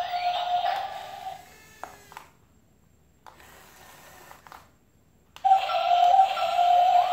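Electronic background music: a sustained high synth tone with rising sweeps. It fades out about a second in, leaving near silence with a couple of faint clicks, then comes back abruptly about five seconds in.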